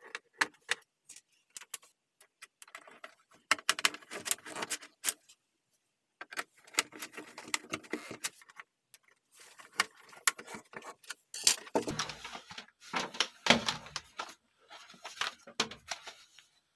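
Hard plastic keyboard parts clicking and clattering as they are handled, in irregular bursts of rapid clicks with short pauses between them.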